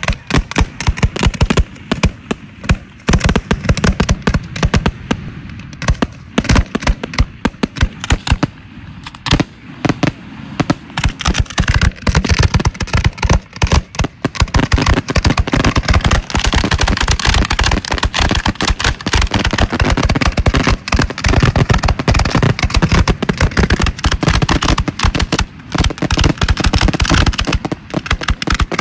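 Fireworks going off in rapid, overlapping bangs and crackles, growing denser and nearly continuous from about a third of the way in.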